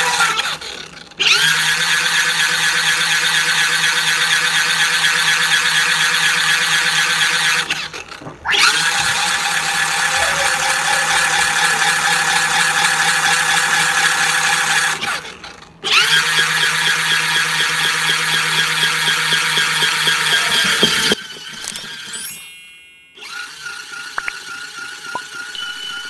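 Motor of a mini portable folding washing machine running loud and steady with a high whine as its tub spins the laundry. It winds down and stops briefly about every seven seconds, then starts up again abruptly, and runs quieter for the last few seconds.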